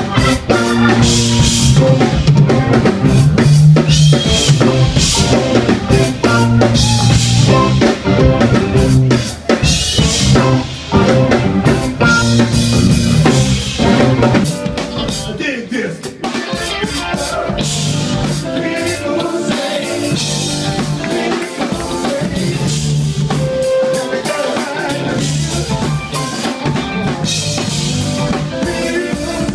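Live funk band playing a loud groove on drum kit, electric bass, electric guitars and keyboards. About halfway through, the music cuts to a quieter, steadier passage.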